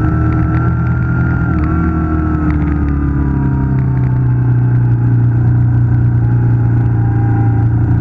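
Moto Guzzi V7 II Racer's air-cooled transverse V-twin running on its standard exhaust while riding, heard from a handlebar-end mount. The revs ease down a little over the first few seconds, then hold steady.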